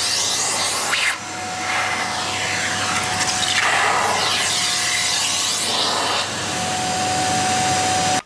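Hoover Xarion bagless cylinder vacuum cleaner running, with a steady whine and its sound swelling and fading every couple of seconds as it is worked. It is switched off at the very end and stops suddenly.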